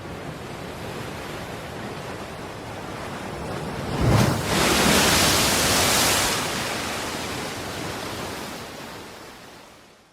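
Sea waves washing on a shore with a steady hiss of surf. About four seconds in, a wave breaks with a low thud, followed by a loud rush of foam for about two seconds, which then eases off.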